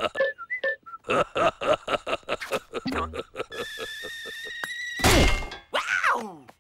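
Cartoon score of quick, staccato notes, then a held high tone, a loud crash about five seconds in, and a falling pitch glide near the end.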